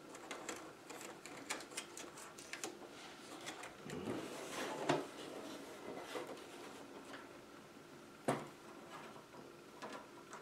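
Thin plastic diffuser sheets of an LCD TV backlight being handled and lifted off: light clicks and crackles of flexing plastic, a rustle of sliding sheets about four seconds in, and a sharp tap a little after eight seconds.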